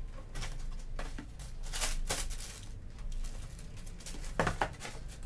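Cardboard sneaker box being opened by hand and the tissue paper inside rustled and crinkled, in short irregular bursts.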